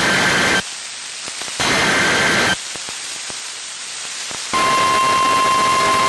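Emergency Alert System header data bursts, two rasping bursts about a second long, heard through radio static. About four and a half seconds in, the steady 1050 Hz NOAA Weather Radio warning alarm tone starts, signalling that a new warning is about to be read.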